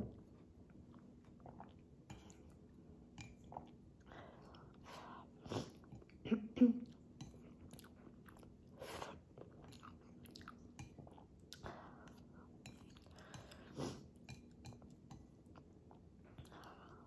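Close-up mouth sounds of someone eating instant ramyun noodles: soft, wet chewing with scattered small clicks, and a cluster of louder short mouth sounds a little after six seconds in.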